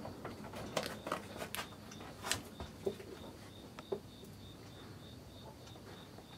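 A kitten moving along a narrow wooden ledge among loose cables: scattered light taps and clicks in the first four seconds or so. From about halfway, a faint, high, evenly pulsing chirp carries on underneath.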